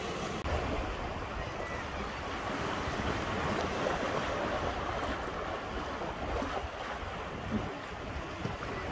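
Sea waves washing steadily against a rocky shore, with wind rumbling on the microphone.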